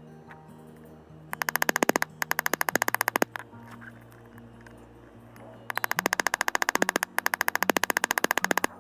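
Background music: held low synth notes that change every second or so, broken by two long runs of very rapid repeated notes, about a second in and again from near the middle to the end.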